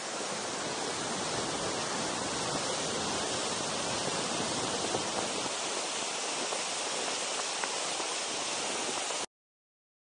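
Steady roar of a large waterfall, white water rushing and plunging into a rock gorge, cutting off abruptly near the end.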